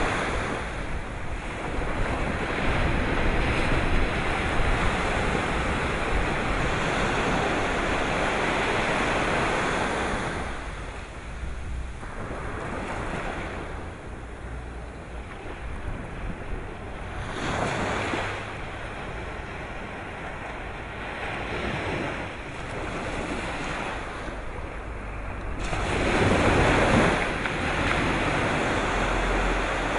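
Sea waves breaking and washing in, the rush of water swelling and ebbing in slow surges, loudest near the start and again near the end. Wind buffets the microphone with a low rumble.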